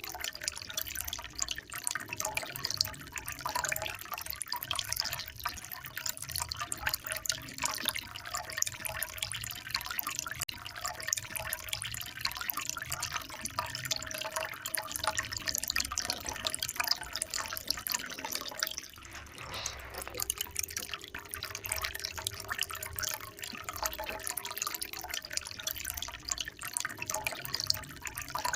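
Running water, a steady splashing flow with many small drips and trickles.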